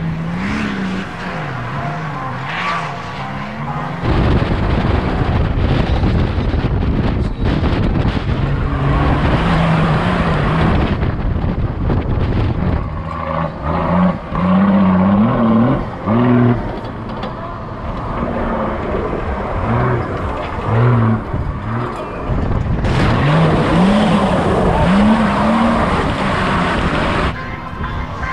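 Off-road race car engines revving hard, the pitch climbing again and again with the throttle and gear changes; the noise gets much louder about four seconds in.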